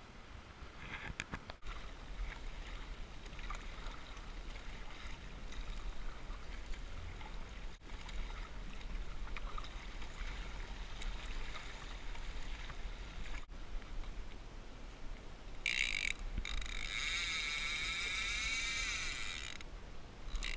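Wind and water noise on an action camera's microphone as a kayak moves over the sea. Near the end a fishing reel's drag screams as a hooked fish takes line, in a short burst and then a longer one of about three seconds.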